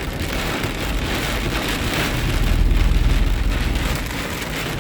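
Heavy rain drumming on a moving car's roof and windshield, heard from inside the car as a dense, steady roar. A low rumble swells about two seconds in and fades by about four seconds.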